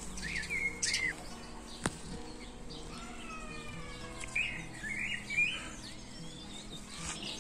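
Birds chirping outdoors in short calls, near the start and again in a cluster a little past the middle, with one light knock about two seconds in.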